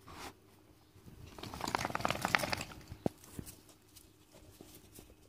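A dog sniffing and snuffling right up at the microphone: a dense run of quick, wet clicks starting about a second in and lasting about a second and a half, followed by a few single ticks.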